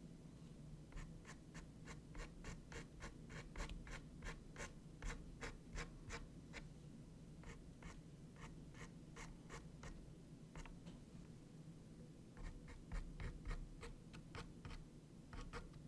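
Foam wedge sponge dabbing and rubbing paint onto a small textured canvas: quick, short, scratchy strokes, several a second, with a couple of brief pauses.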